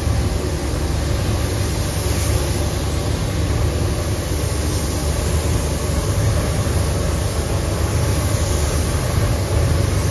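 Steady rushing air of a paint booth, a deep rumble under the hiss of a gravity-feed paint spray gun spraying silver paint.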